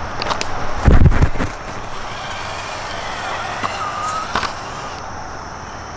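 A low thump about a second in, then the faint whine of a Redcat RC rock crawler's electric motor and drivetrain, its pitch shifting as it drives. Two sharp clicks come about midway.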